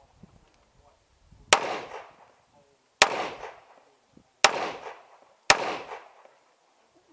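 Four pistol shots from a semi-automatic handgun, each sharp crack followed by a short echo, spaced unevenly about one to one and a half seconds apart.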